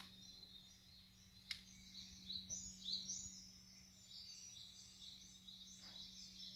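Faint birds chirping over a steady low hum, with a sharp click about a second and a half in.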